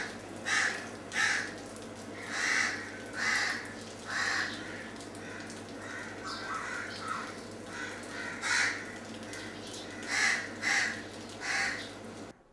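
Crows cawing over and over, about a dozen harsh caws spaced unevenly, with a steady low hum underneath.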